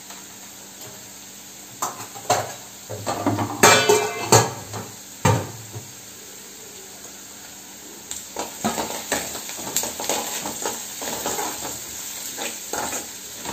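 Cooking utensils clanking against metal cookware several times about two to five seconds in. Then, from about eight seconds, a run of quick scraping strokes of a spatula stirring food in an aluminium kadai.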